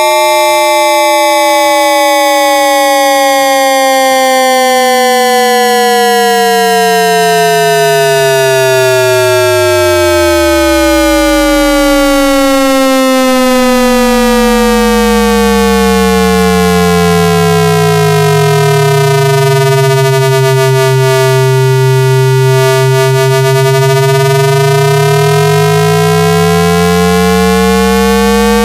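AM radio heterodyne whistles: several loud whistling tones slowly sliding in pitch and crossing each other. The lowest falls to a deep hum about ten seconds in, then climbs back up, like a carrier beat note passing through zero.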